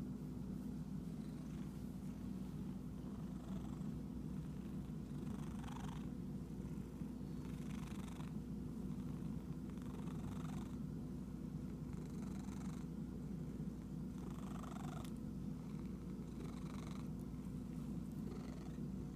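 Domestic cat purring steadily while being scratched, with a soft rustle about every two seconds.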